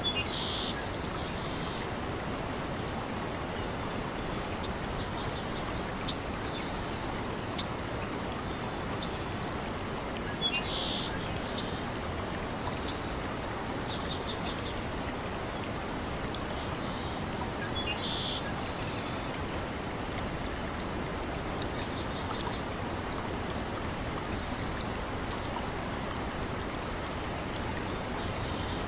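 A steady wash of running water and rain. Short high bird chirps break in every several seconds.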